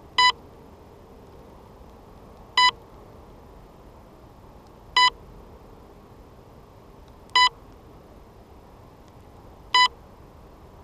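Electronic beeper on a crashed RC model sounding short single beeps at an even pace, about one every two and a half seconds, five in all, over a faint steady hiss.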